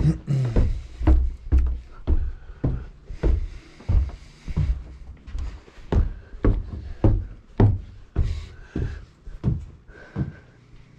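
Footsteps climbing a flight of stairs, about two heavy thuds a second, stopping once the top is reached near the end.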